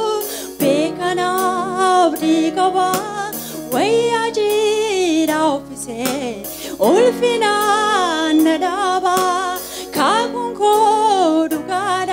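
Gospel worship song: a singer holding long, wavering notes over sustained instrumental accompaniment with a percussion beat.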